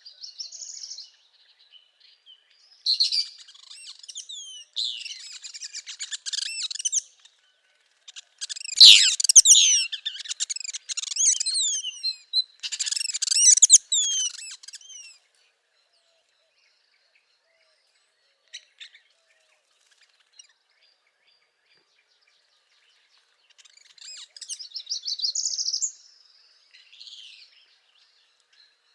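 Northern parula singing: several bursts of rapid, high-pitched song through the first half, then a quiet stretch and another song phrase near the end.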